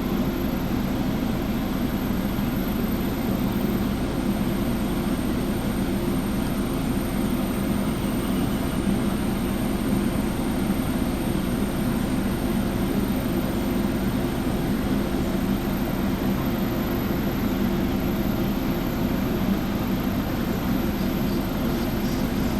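A steady low engine drone that runs unchanged, with a faint steady high-pitched whine above it.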